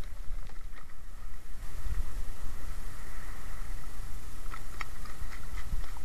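Wind rumbling on the microphone over choppy lake water, with a few short splashes or knocks near the end.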